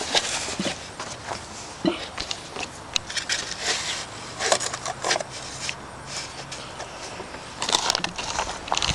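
Scattered scrapes, rustles and light knocks of hands working a sticky mixture around a plastic volcano mould.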